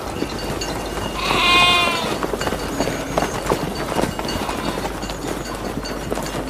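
A sheep bleats once, about a second in: a single call slightly under a second long, wavering in pitch, over a steady outdoor background hiss.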